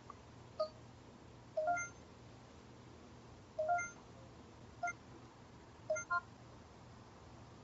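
Short electronic beeps from a camcorder's buttons and menu as its scene-editing functions are operated. There are about six brief blips at uneven intervals, a couple of them in quick pairs, over a faint low hum.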